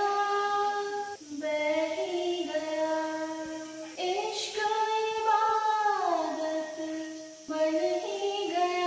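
A woman singing a slow melody into a handheld karaoke microphone, holding long notes that glide up and down, with short breaks between phrases about a second in, near four seconds and about seven and a half seconds in.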